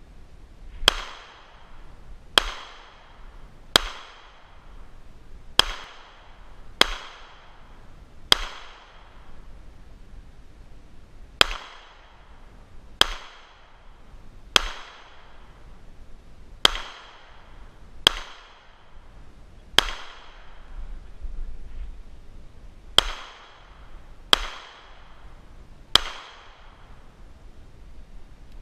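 Smith & Wesson M&P 2.0 9mm pistol fired fifteen times in slow, aimed single shots, roughly one every one and a half seconds with two longer pauses. Each shot is a sharp crack followed by a short echo.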